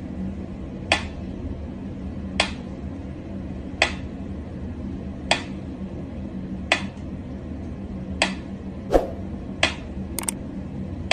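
Pyramid-shaped mechanical metronome ticking slowly, one sharp tick about every one and a half seconds as its pendulum swings. Two extra clicks come near the end, and a faint steady hum runs underneath.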